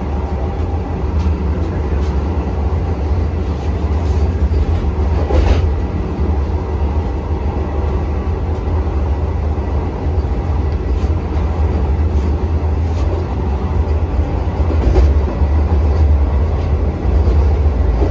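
Vande Bharat Express electric train running at speed, heard from on board: a steady low rumble of wheels on rail, with faint occasional clicks.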